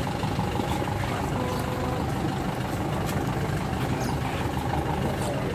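Steady low engine rumble, as of a vehicle idling.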